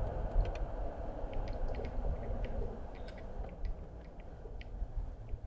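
Steady low rumble of a car driving along a road, with scattered light clicks over it.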